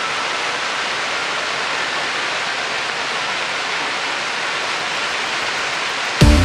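Steady hiss of a musical fountain's water jets spraying and splashing down into the lake. Right at the end, loud music with a heavy beat starts suddenly.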